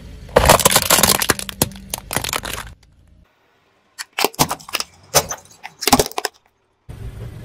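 A car tyre rolling over and crushing plastic toys. First comes a dense crackle of snapping plastic lasting about two seconds as a toy truck gives way. After a brief silence, a run of separate sharp cracks follows as a row of plastic yo-yos breaks one after another under the tyre.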